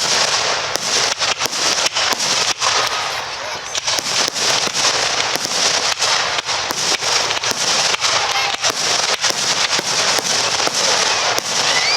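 Aerial fireworks display: a dense, continuous barrage of sharp bangs and crackling, several reports a second.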